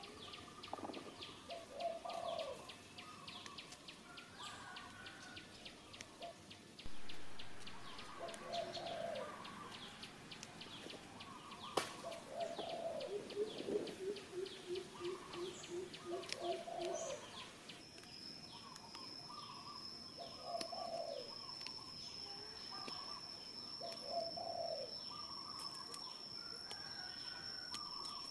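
Birds calling: a short low call repeats every three to four seconds over many small high chirps, with a quick run of pulsing notes near the middle. A steady high-pitched tone sets in about two-thirds of the way through.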